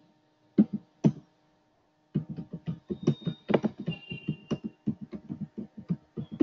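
Computer keyboard typing: two keystrokes, a pause of about a second, then a fast, uneven run of key clicks.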